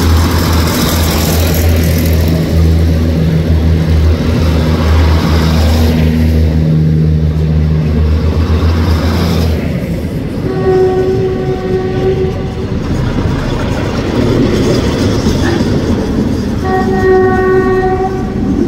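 State Railway of Thailand diesel railcar train passing close by, its diesel engines running with a steady low hum for about the first half. Then two horn blasts sound, a longer one of about two seconds and a shorter one near the end.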